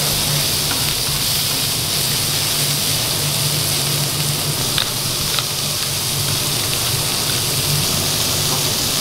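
Food sizzling steadily on a flat-top griddle while a metal spatula stirs and scrapes sliced onions, with a couple of sharp spatula clicks about five seconds in.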